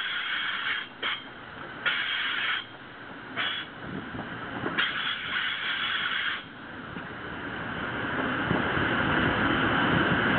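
Wheels running on the rails and rushing air of a moving passenger train, heard from an open window on board. Bursts of hiss come and go during the first six seconds, and the running noise grows steadily louder near the end.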